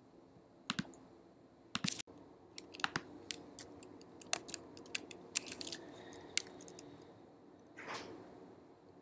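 Scattered, irregular clicks of a computer keyboard and mouse, a few quick ones bunched together about halfway through, with a short soft rustle about eight seconds in.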